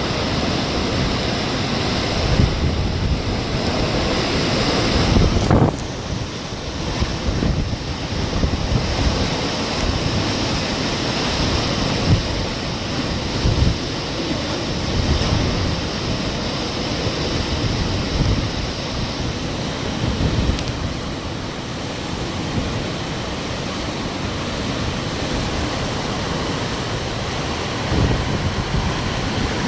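Hurricane wind blowing hard and steadily, rumbling and buffeting the microphone in gusts.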